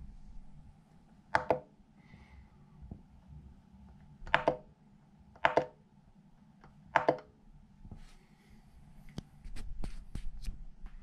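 Four short double clicks from pressing the push-button control knob of a Monoprice Mini Select V2 3D printer while stepping through its menu, spaced a few seconds apart. Near the end come several lighter ticks over a low rumble.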